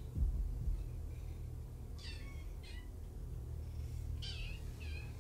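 Kitten meowing four times in two quick pairs, short, high-pitched mews. A couple of low thumps come near the start, over a steady low hum.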